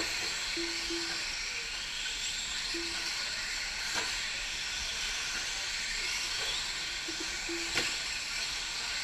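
Several electric 4WD radio-controlled short-course trucks racing on a dirt track: a steady high hiss of motor whine and tyre noise, with a sharp knock about four seconds in and another near the end. A few short low beeps come and go.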